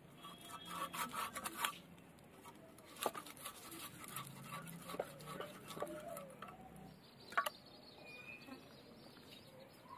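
Raw country chicken being cut into pieces on a boti, a curved blade fixed upright in a wooden base: faint scattered clicks and knocks of blade on meat and bone. There is a quick run of clicks about a second in and a single sharper knock about seven seconds in.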